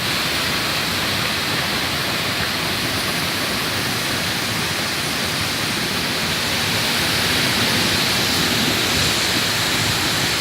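Heavy rain pouring down in a storm: a loud, steady hiss that swells slightly near the end.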